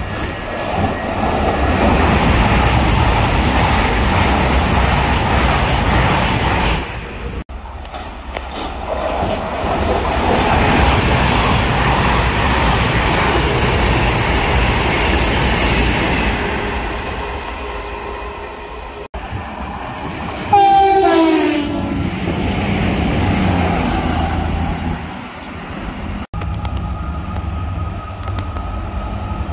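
Passing trains in a run of short clips cut together, their running noise rumbling and rising and falling. About twenty seconds in a loud horn blast sounds and falls in pitch as the train goes by.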